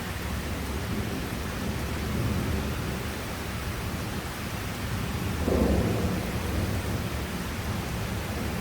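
Thunderstorm: steady heavy rain and wind noise with a low rumble, and a sudden louder clap of thunder about five and a half seconds in.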